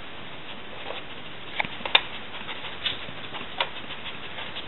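A few light plastic clicks and taps as a greyhound noses at the cups and base of a plastic treat-puzzle toy, spaced about a second apart.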